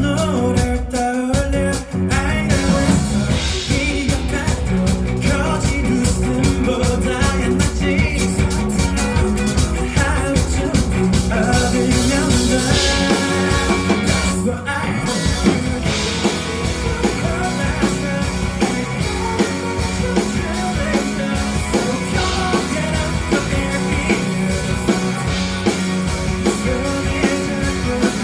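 A live band playing an upbeat rock song with a steady drum-kit beat, guitar and bass.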